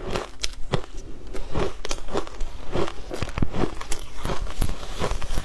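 Close-miked crunching of frozen shaved ice being bitten and chewed: a fast, irregular run of sharp crunches, about three or four a second.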